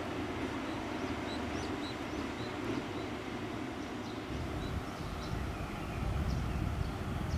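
EF81 electric locomotive running light at low speed, a steady rumble whose low end grows louder about four seconds in as it comes closer. Small birds chirp over it.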